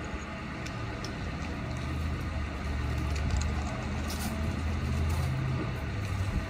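The engine of a 1972 Ford Mustang Grande idling, heard close to its tailpipe as a steady low exhaust rumble that grows a little louder about two seconds in.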